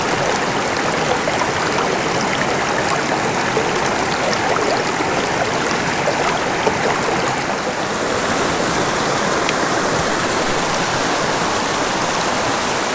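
Small rocky mountain creek rushing over stones and riffles: a steady, even water sound.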